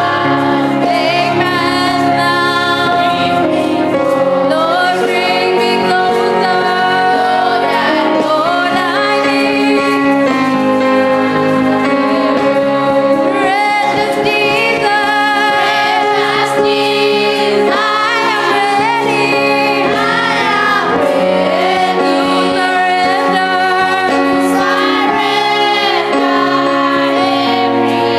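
Music: a song sung by voices over instrumental accompaniment, with held, wavering sung notes throughout.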